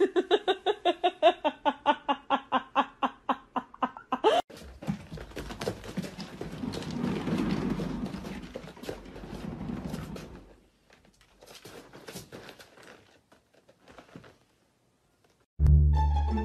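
A cat making a fast run of short, pitched calls, about five a second, for some four seconds. Then a cat exercise wheel rumbles and clicks as a kitten runs in it, dying away after about ten seconds. Plucked-string music starts near the end.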